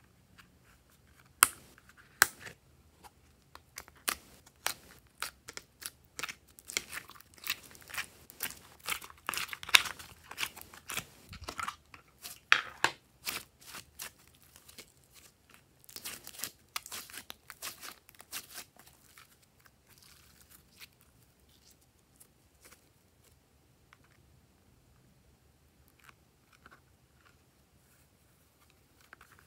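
Glossy slime being peeled out of a plastic tray and stretched by hand, with sticky crackling pops and snaps. There are two sharp clicks near the start and a dense run of crackles in the middle, thinning out in the last third.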